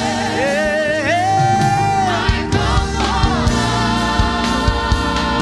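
Live gospel praise singing: a lead singer and backing vocalists over a band with a steady beat, with one long held note in the first half.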